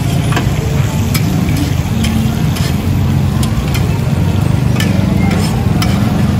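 Metal spatula scraping and clacking against a flat steel griddle as chopped food is stirred and fried, with irregular sharp clacks over a steady low rumble.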